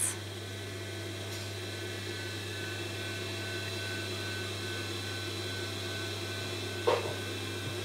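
Steady electrical mains hum with faint high-pitched tones above it; no clear sound of the fabric handling. A brief voice sound, like a breath or a word starting, comes about seven seconds in.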